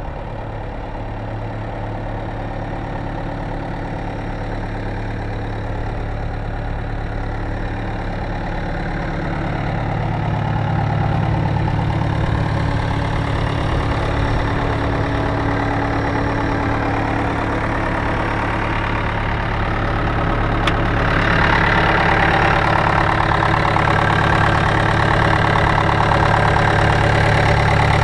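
Caterpillar 242B3 skid steer's diesel engine idling steadily. It grows gradually louder, and about two-thirds of the way through it turns louder and brighter.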